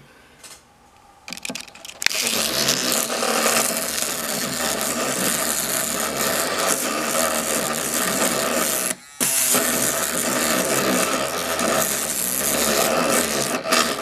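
Battery electric toothbrush converted into a lock pick, buzzing steadily as its vibrating pick rattles inside a small gun safe's keyhole lock to bounce it open. It starts about two seconds in after a few light clicks, cuts out for a moment once past the middle, then runs on until near the end.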